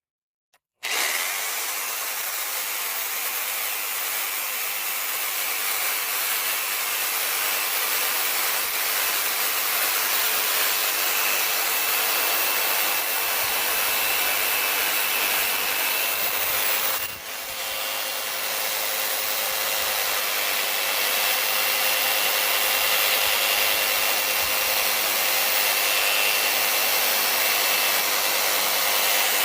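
Reciprocating saw running steadily as it cuts through pallet wood, starting about a second in, with a steady whine over the noise of the blade, and easing for a moment a little over halfway through before carrying on.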